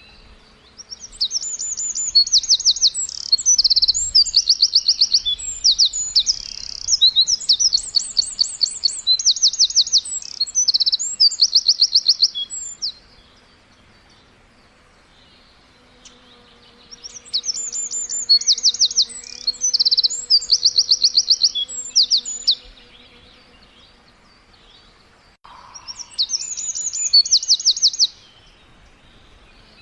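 Songbird singing in three bouts of rapid, high trilled phrases, each a quick run of evenly repeated notes, with quiet pauses of a few seconds between bouts.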